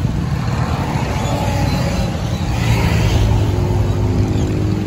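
A van driving past close by, its engine running steadily.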